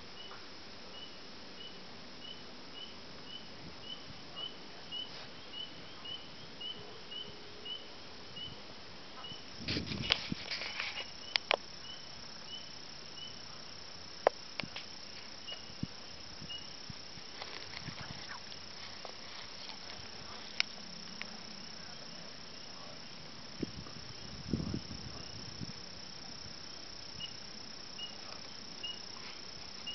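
Night insects calling: a steady high-pitched drone with a regular chirp about twice a second. A few sharp clicks and rustling bursts come about ten seconds in and again near twenty-five seconds.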